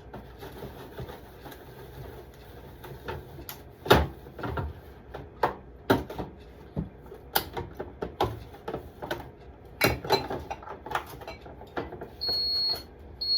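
Bottles and containers knocking and clunking as refrigerator door shelves are cleared and wiped. Near the end, the refrigerator's door-open alarm starts beeping, high-pitched, about once a second, because the door has been left open too long.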